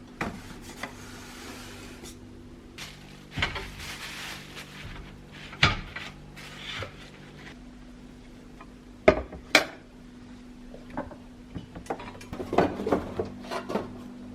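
Scattered knocks and clinks of hard items being handled and set down, dish-like, over a steady low hum. The loudest knocks come about nine seconds in and again toward the end.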